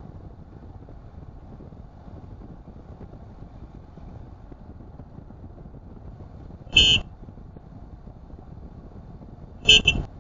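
Steady road and engine noise from a moving car, with a short, loud car horn honk about seven seconds in and another double tap on the horn near the end.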